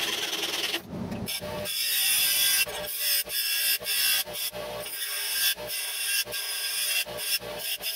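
Bench grinder wheel grinding the end of a thin steel rod: a bright, hissing grind over the motor's steady hum, broken by several brief gaps.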